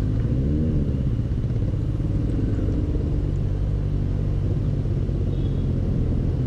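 Benelli 600 GT motorcycle's inline-four engine running steadily at low road speed, with a brief rise and fall in revs about half a second in.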